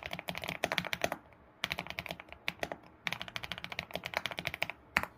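Typing on an ABKO computer keyboard: three quick runs of rapid keystrokes separated by short pauses, then a single louder key press near the end.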